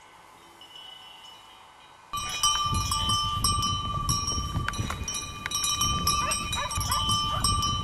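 Quiet for about two seconds, then a herd of horses moving over a grassy hillside. Irregular thuds and clicks sound over a steady high ringing tone.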